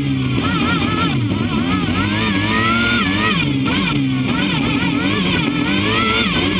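Can-Am ATV engine running under load through deep snow, its revs rising and falling continually as the throttle is worked.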